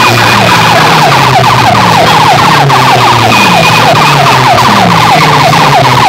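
Siren-like sound effect blasting from a stack of horn loudspeakers on a DJ sound system: rapid falling sweeps, about five a second, over a steady low drone with slower falling glides.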